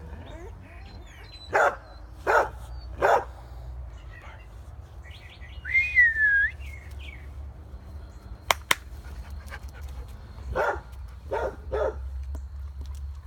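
A dog barking in short single barks, three in quick succession early and three more near the end. Around the middle comes a brief high squeak that rises and falls, the loudest sound here, and a sharp click follows a little later.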